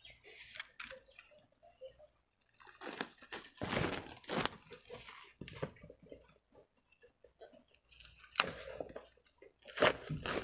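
Book packaging being cut open with a utility knife and torn off, with tearing and crinkling in irregular bursts.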